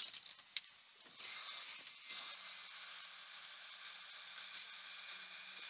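Hot-air rework station blowing a steady hiss of hot air, starting about a second in and growing stronger about two seconds in, with a faint low hum from its fan. The air is desoldering a suspect component from the circuit board.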